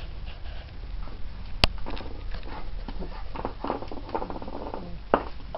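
Cavalier King Charles Spaniel playing with a dried chew on a hardwood floor: a sharp click about a second and a half in, then a run of small taps and scrapes as the dog mouths and works the chew against the boards.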